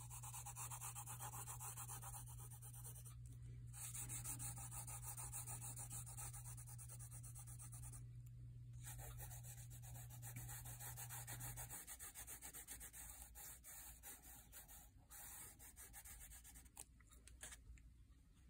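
Graphite pencil shading back and forth on graph paper in rapid, continuous strokes, with two short pauses. The strokes become sparser near the end as fingers rub the shading. A low steady hum runs underneath and cuts off about twelve seconds in.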